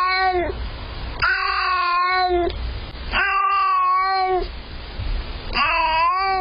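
A cat yowling: long drawn-out meows, one after another, each lasting more than a second, with short pauses between them.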